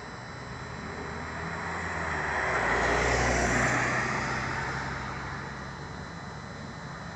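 A road vehicle driving past, growing louder to a peak about three seconds in and then fading away.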